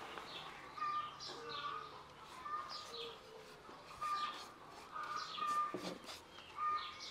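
Birds singing outdoors: short phrases of quick descending chirps and clear whistled notes, repeated about once a second.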